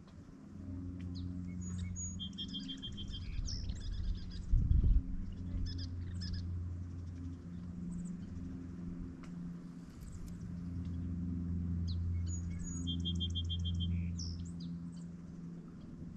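A songbird singing the same short phrase twice, about ten seconds apart, each with a fast trill, over a steady low rumble. A single dull knock about four and a half seconds in.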